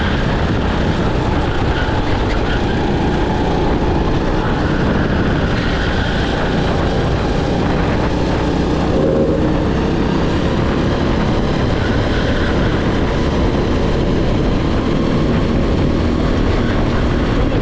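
Racing kart engine running hard at speed, heard onboard with heavy wind rush on the microphone. The engine note rises and falls as the kart slows for corners and accelerates out of them.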